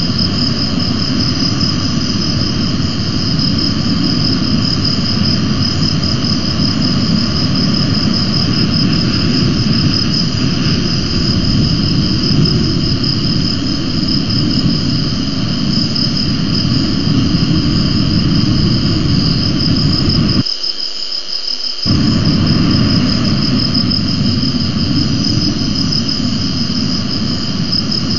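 Wind buffeting an outdoor camera microphone: a loud low rumble that cuts out for about a second and a half some twenty seconds in. Over it runs a steady high-pitched insect-like trill.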